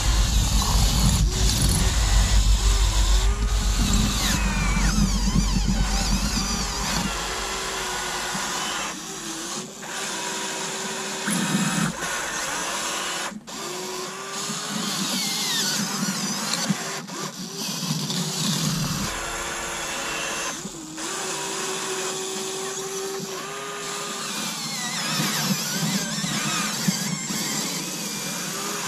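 Huina 1580 RC excavator's small electric motors and gearboxes whining as the arm and bucket dig at a boulder, the pitch gliding up and down and stopping and starting with each control movement. A low rumble runs under it for the first six seconds or so.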